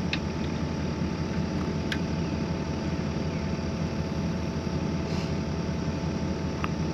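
Engine idling steadily, with a few faint clicks over it.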